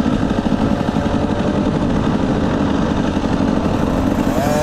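Small motorbike-type engine running steadily while riding along, mixed with wind rumble on the microphone.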